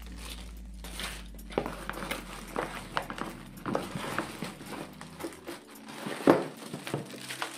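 Hands handling the packaging: a run of small clicks, knocks and rustles, with the loudest sharp knock about six seconds in as a small object lands on the wooden tabletop.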